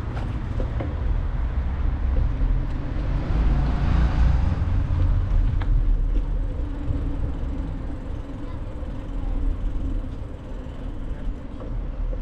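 City street noise recorded from a moving bicycle: a steady low rumble from the ride. About four seconds in, a passing vehicle swells and then fades.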